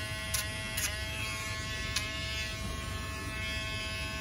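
Cordless Dremel-style rotary tool running with a steady high-pitched whine as its sanding drum grinds down a dog's toenails, with a few sharp ticks in the first couple of seconds.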